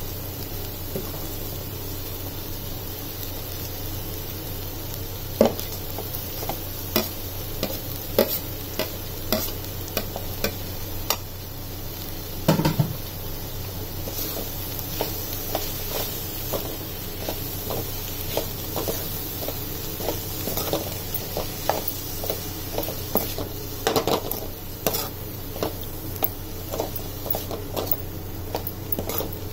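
A steel spatula scraping and knocking against a pan as spinach, onion and grated coconut are stirred over the heat, with a steady sizzle of frying underneath. The scrapes are few at first and come in quick succession after the first few seconds.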